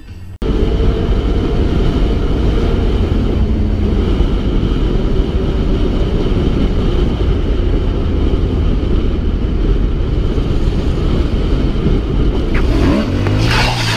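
Motorcycle riding fast, heard from a camera on the bike: a loud, steady rush of wind and engine noise that starts abruptly just after the start. Near the end a wavering pitched sound joins in.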